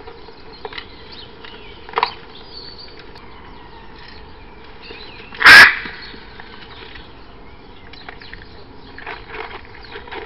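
Hyacinth macaws calling: a short harsh squawk about two seconds in, then one very loud squawk about halfway through, heard over the steady hiss of a trail camera's microphone.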